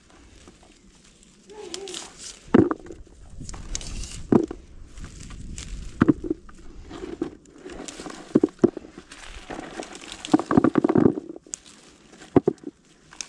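Olive leaves and twigs rustling and brushing as olives are picked off the branches by hand, with sharp clicks and knocks every second or two and a busier cluster of them about ten seconds in.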